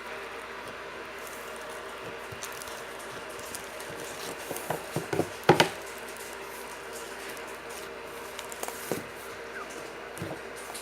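Jiggly slime being squished and pressed by hand: a cluster of wet clicks and pops about halfway through, the loudest of them close together, then a few more near the end, over a steady background hum.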